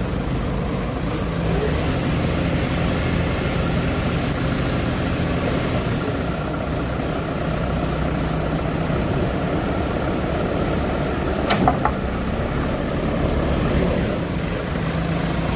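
Backhoe loader's diesel engine running steadily, with two short sharp knocks about three quarters of the way through.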